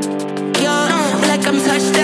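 Background music with held chords that change about every second and sliding notes above them.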